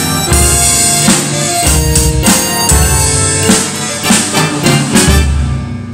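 Acoustic drum kit played along with pitched music: cymbal crashes and drum hits over the track, which fades out near the end.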